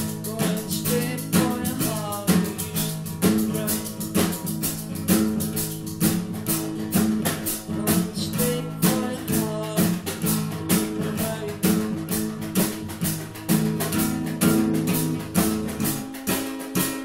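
Acoustic guitar strummed in chords with a snare drum and cymbal played with sticks, keeping a steady beat. The low notes drop out briefly near the end.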